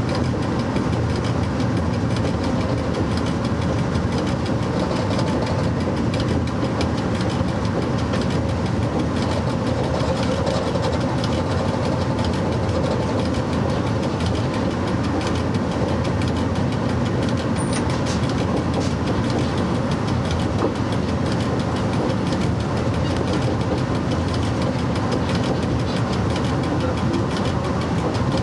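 FS E.656 electric locomotive hauling a train along the line at speed: steady running noise of wheels on rail and traction equipment, with fine clicks throughout.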